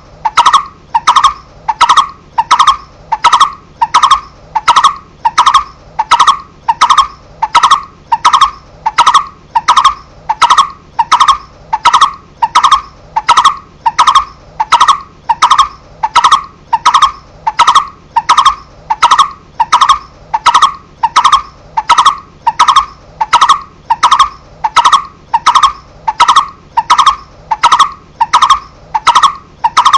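Barbet (cu rốc) calling: one short note repeated at an even pace, a little under two a second, without a break.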